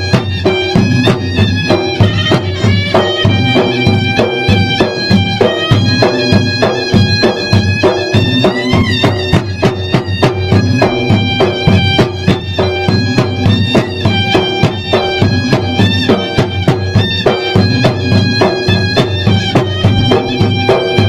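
Traditional Makassarese gendang adat drum ensemble playing a fast, dense, steady rhythm, with a continuous wavering melody from a reed wind instrument, a pui-pui shawm, droning over the drums.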